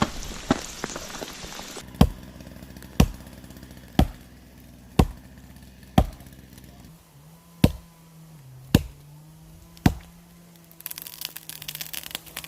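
Axe chopping wood: eight sharp strikes, about one a second, the gaps growing slightly longer near the end.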